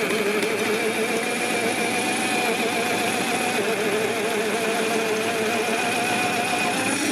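Parkside PTBMOD 710 B2 bench pillar drill running at 500 rpm with a 16 mm bit boring into a block of wood. It makes a steady motor whine whose pitch wavers slightly under the load, a sign of a motor that loses strength at this low speed.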